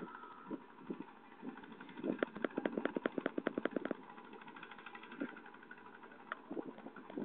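An engine running steadily, with a quick run of rapid clicks about two seconds in that lasts about two seconds.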